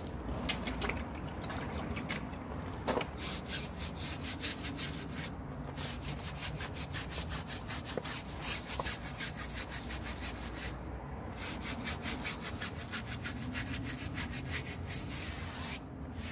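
Stiff-bristled brush scrubbing a car tyre sidewall and the wheel arch, wet with citrus pre-wash, in quick repeated strokes that pause briefly now and then.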